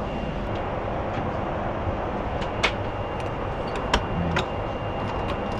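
Steady in-flight cabin noise of a Boeing 747-8 at cruise: an even rush of engine and airflow noise. A few short sharp clicks sound over it, about halfway through and twice more near four seconds in.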